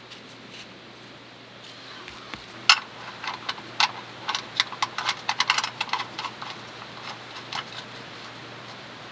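A quick, irregular run of sharp clicks and clinks of small hard objects being handled, starting a little under three seconds in with one loud click and thinning out near the end.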